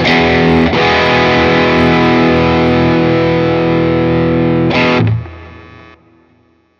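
Electric guitar played through a Fender Tone Master Pro modeler with its Pugilist distortion model engaged: chords struck twice near the start and left ringing with distortion, then cut off about five seconds in and dying away to silence.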